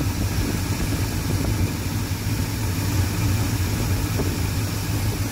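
1987 Chevy square-body pickup's engine idling steadily, heard from under the hood.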